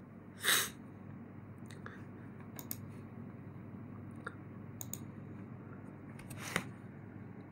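Quiet room hiss with a short breath about half a second in, then a few faint, scattered clicks, the sharpest near the end.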